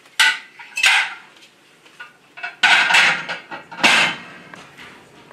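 Dishes clattering and clinking as a dishwasher is unloaded and they are put away: four separate bursts, the longest near the middle.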